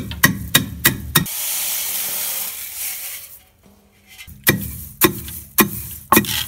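Long wooden pestle pounding dry-roasted lentils in a stone mortar, about three strikes a second. The pounding breaks off about a second in for a couple of seconds of rushing hiss and a short pause, then starts again.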